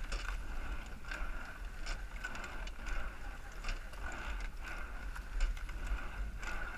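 Eight-oared rowing shell under way, with sharp clicks and knocks about once a second from the oars turning in their oarlocks and the seats running on their slides as the crew rows a steady stroke. A low rumble runs underneath.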